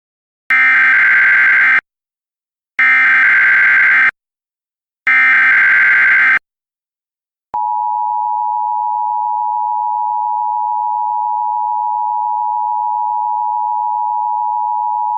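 Emergency Alert System tones: three bursts of SAME digital header data, each a little over a second long with short gaps between. About seven and a half seconds in, the steady two-tone EAS attention signal begins.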